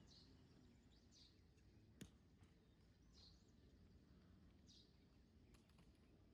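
Near silence outdoors with faint bird chirps, a handful of short calls a second or more apart. A single sharp click sounds about two seconds in.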